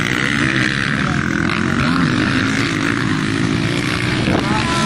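Motocross dirt bike engines racing on the track, several bikes revving hard, their pitch rising and falling as they accelerate and pass.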